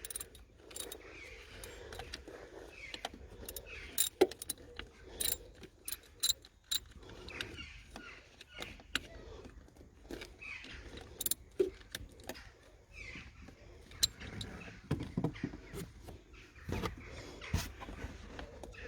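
Scattered light metallic clinks, clicks and scrapes of hand tools and a bolt being worked by hand, as a fastener is put back on the engine.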